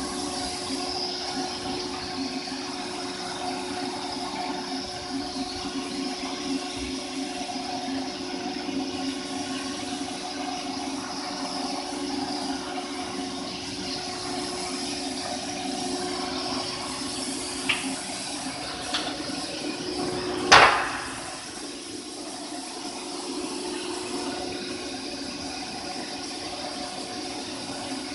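CNC stone machining center running with a steady hum while water coolant sprays and gushes over the stone. Two small clicks and then one loud sharp knock come about 18 to 20 seconds in.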